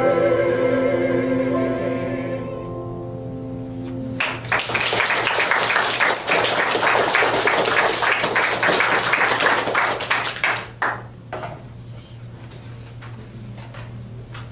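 Mixed voices of a small vocal quartet hold the final sung chord of a song and let it fade out. About four seconds in, an audience starts applauding and claps for some six seconds before the clapping dies away.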